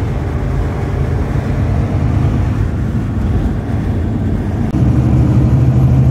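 Steady engine and road noise heard inside the cab of a moving vehicle. About five seconds in, the engine's low hum gets louder and steadier.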